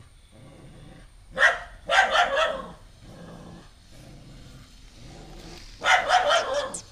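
A dog barking in short bursts at a stray puppy: one bark, then a few quick barks, then a fast run of barks near the end, a hostile warning-off of the newcomer.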